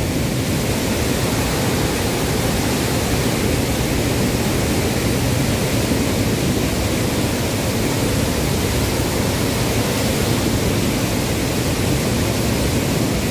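Brown floodwater gushing out of a dam's open sluice gates into a swollen river: a steady, heavy rush of water, very fast-flowing, with spray churning below the outlets.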